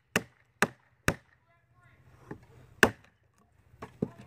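A steel knife blade chopping into an oak branch: sharp woody knocks, three quick blows about half a second apart, then a louder one a little before three seconds, and a couple of lighter knocks near the end.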